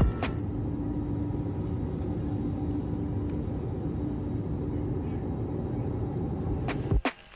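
Steady low rumble of a vehicle in motion. It cuts off abruptly near the end.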